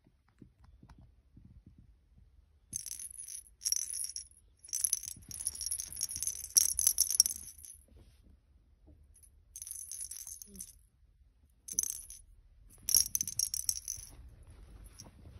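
Small bell inside a hollow plastic ball toy on a wand jingling in about six bursts as a cat bats it, the longest lasting a couple of seconds.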